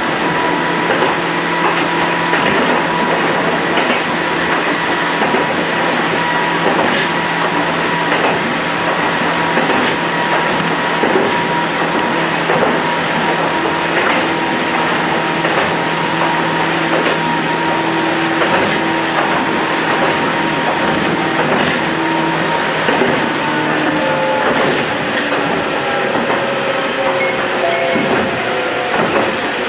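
Toyama Chiho Railway 14760 series electric train running on the line, with a steady motor and gear whine, track noise and irregular clicks of the wheels over the rails. Near the end the whine glides down in pitch as the train slows for the next station.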